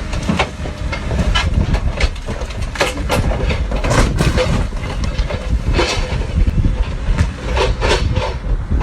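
Vehicle noise: a steady low rumble with irregular knocks and rattles scattered throughout.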